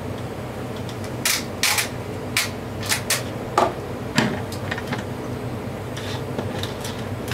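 A series of sharp clicks and taps, about eight in three seconds with the last two heavier, then a few fainter ticks, over a steady low hum.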